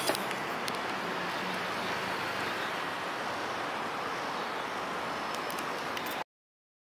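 Steady city street noise with traffic, which cuts off suddenly about six seconds in.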